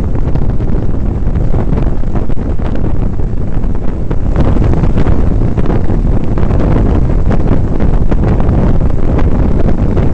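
Heavy wind buffeting the microphone of a camera on a moving motorcycle at road speed, a loud, steady low rumble that covers the bike's own running noise.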